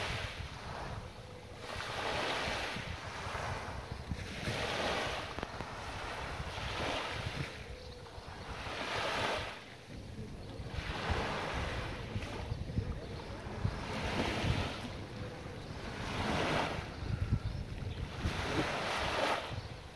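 Small waves washing onto a sandy beach, a soft rush of surf swelling and fading every two seconds or so, with wind rumbling on the microphone.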